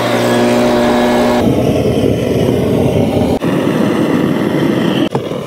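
Propane roofing hand torch burning steadily while heating torch-down roll roofing membrane to bond it. It holds a steady humming tone for about the first second and a half, then becomes a broad rushing noise that dips briefly twice.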